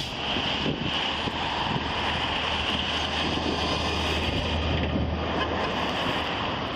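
Steady wind rushing on a body-worn camera microphone, with a steady low hum underneath.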